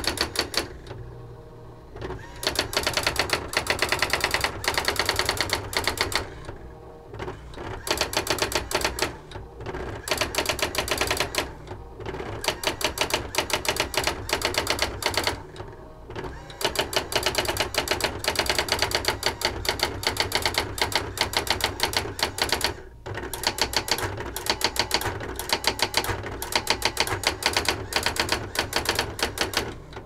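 Brother AX-22 electronic daisy-wheel typewriter printing its built-in demonstration text by itself: fast runs of machine-gun character strikes, broken every few seconds by short pauses between lines.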